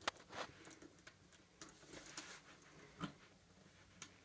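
Small knife scoring and slicing the packing tape on a cardboard box: a few faint, scattered scratches and clicks.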